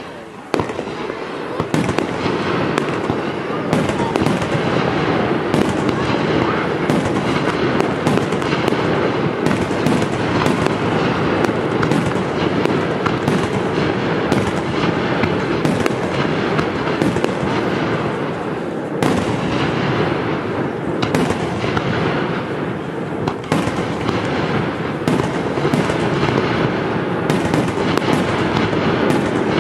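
Fireworks display in a continuous barrage: aerial shells bursting one after another over a dense, steady crackle, swelling about half a second in.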